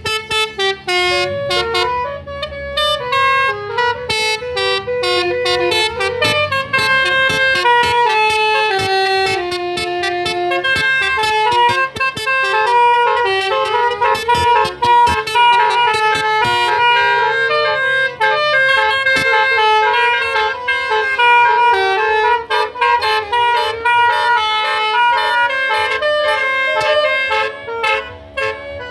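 Basuri 'telolet' multi-tone musical car horns playing tunes, note after note in quick steps. A low engine hum runs underneath until about two-thirds of the way through.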